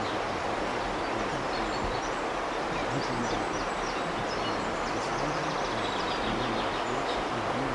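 Steady rush of flowing river water, with small birds chirping over it.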